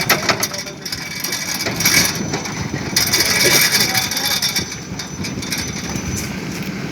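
Clattering and scraping of construction work, a rapid, irregular run of clicks and knocks over a steady noise.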